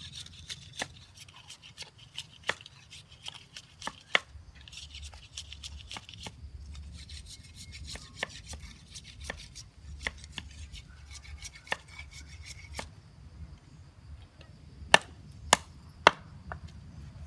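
A large knife whittling a thin bamboo stick: irregular sharp chipping cuts and scrapes of the blade on the bamboo, with three louder sharp knocks close together near the end.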